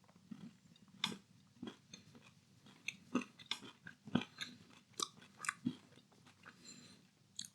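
A person chewing a milk chocolate bar studded with small sugar-coated chocolate balls, the balls crunching between the teeth in a run of irregular soft crunches.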